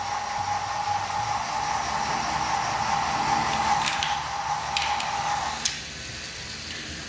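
A small electric motor running with a steady whine, cutting off about five and a half seconds in, with a few light clicks.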